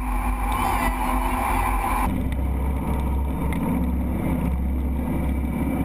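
Jet boat running at speed: a loud rush of whitewater and spray, then about two seconds in the sound changes abruptly to a steady low rumble of the boat at speed on calmer water.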